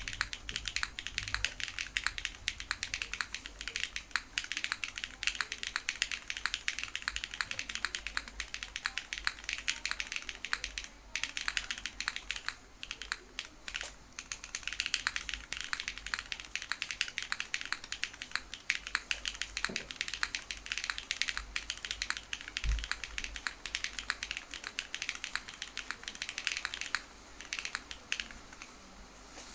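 Fast typing on a Stello65 gasket-mount mechanical keyboard with an aluminium plate, no foam, tactile franken switches (KNC Green Jacket stems in Cherry Brown housings) and GMK Denim keycaps: a dense stream of keystroke clacks, broken by a few brief pauses.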